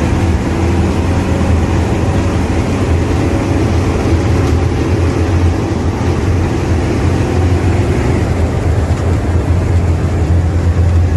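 Bus engine and 'ngorok' (growling) exhaust running steadily under way, a loud, even, deep drone with no revving.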